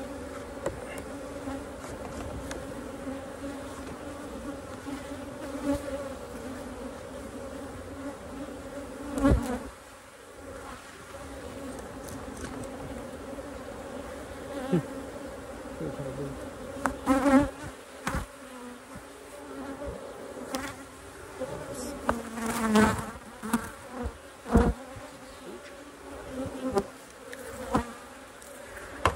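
Honeybees buzzing around an opened hive, a steady hum, with a few short sharp knocks scattered through it, the louder ones about nine seconds in and again in the second half.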